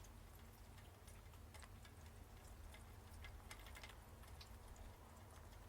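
Near silence: faint room tone with a low hum and a few scattered, faint ticks.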